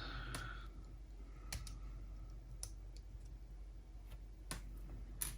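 Faint, scattered clicks and light taps, about nine of them at uneven intervals, from small tools and parts being handled while a Sony MZ-RH1 MiniDisc Walkman is taken apart.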